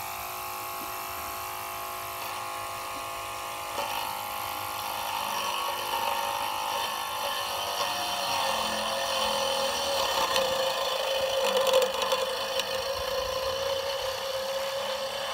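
Small electric motor of a homemade robot lawnmower spinning its hacksaw-blade cutter: a steady whine made of several tones. It grows louder about four seconds in, and its pitch sags and wavers in the second half.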